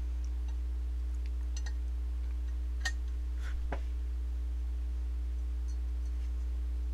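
A few light clicks of a steel gear being handled and set onto its bushing in a metal airsoft gearbox shell, over a steady low hum.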